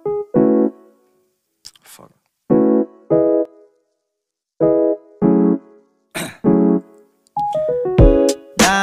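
Intro jingle of short electric-piano notes in ones, twos and threes with silent gaps between. There is a brief swish about six seconds in, and a busier run of notes and swishes with a quick pitch glide near the end.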